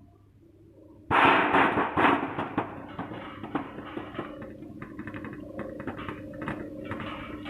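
Machinery starts up abruptly about a second in: a steady hum with many irregular clattering knocks over it.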